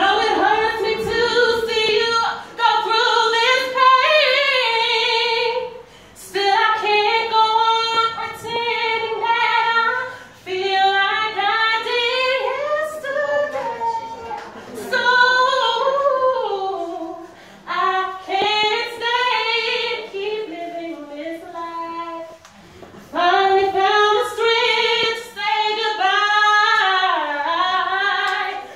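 A woman singing unaccompanied, in long phrases of held notes and sliding vocal runs, with short breaks for breath between phrases.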